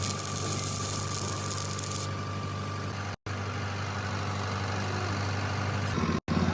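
Steady mechanical hum with a hiss over it, broken off for an instant twice, about three and six seconds in.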